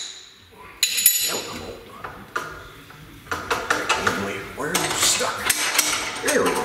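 Steel parts clinking and clattering as a collet is worked loose and handled at a mill-drill's spindle, with one sharp ringing metal tap about a second in and a busy run of clinks in the second half.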